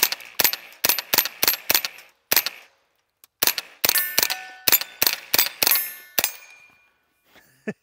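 Tippmann M4-22 .22LR rifle firing subsonic rounds in rapid strings, about twenty shots in two runs with a short break about three seconds in. Steel targets ring with a short metallic ding under the later shots, which stop about six seconds in.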